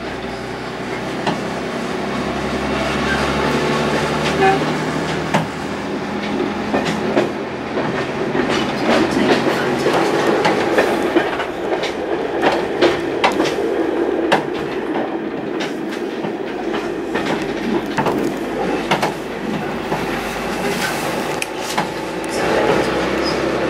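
Passenger train carriage running on the rails, heard from inside the coach: a steady rumble with frequent clicks and clacks of the wheels over rail joints.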